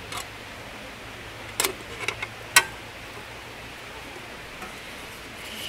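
A few sharp clicks and knocks as a Ventlax Coyote folding camp table is put together, its panels and thin metal rods fitted into place. The loudest click comes about two and a half seconds in.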